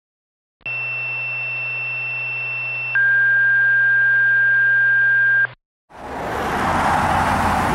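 Two-tone sequential radio paging tones, the kind that alert a fire company to a call: a high steady tone for about two and a half seconds, then a lower, louder steady tone for about two and a half seconds, over a low radio hum. Street traffic noise then fades in for the last two seconds.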